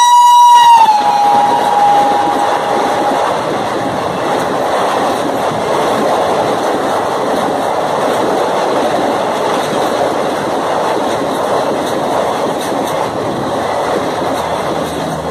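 Electric locomotive of an Indian Railways express train passing at speed with its horn held. The horn drops in pitch as the locomotive goes by and fades within about three seconds. Then comes a steady, loud rush of the coaches running past close by.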